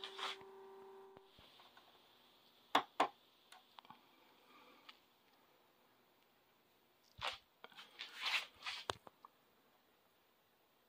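A steady tone stops about a second in, leaving a quiet room. Two sharp clicks follow, then a short cluster of clicks and rustling handling noise near the end.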